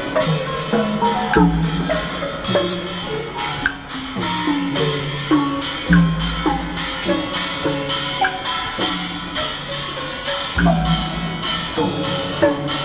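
Instrumental music with percussion: struck pitched notes, many sliding slightly down in pitch, over drums, with sharp clicks keeping time and deep drum strokes now and then.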